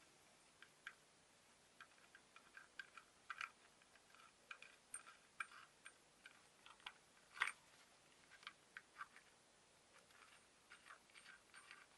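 Faint, irregular small metal clicks and ticks from an old gate lock's parts being handled by hand, with fingers working a nut and washer on a bolt at the side of the lock case. One sharper click comes about seven and a half seconds in.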